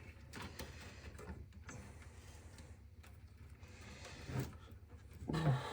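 Faint handling noise of power cables and their plastic locking connectors being worked loose inside a desktop PC case: scattered small clicks and rustles, with a louder knock about four seconds in.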